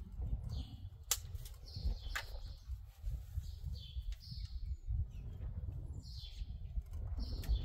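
Small songbird chirping repeatedly: short, high notes that fall in pitch, mostly in pairs, every second or two. A steady low rumble runs underneath, and there are a few sharp clicks.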